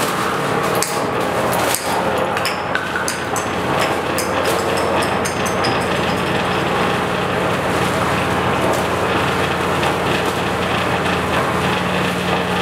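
Loud amplified noise from a contact mic on a styrofoam sound sculpture and a plastic-bag suit, built into a live loop: a dense rumbling wash under a steady droning hum, with sharp crackling and clicking of plastic through the first half.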